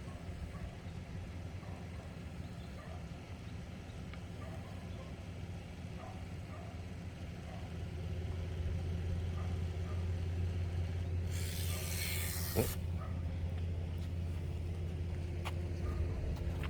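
Vehicle engine idling steadily with a low hum that grows a little louder about eight seconds in. A short loud hiss cuts across it about eleven seconds in.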